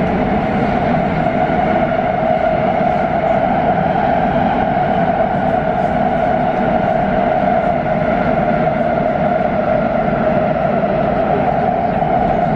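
Škoda Varsovia metro train running between stations, heard from inside the carriage: a steady rumble of wheels and running gear with a steady whine over it.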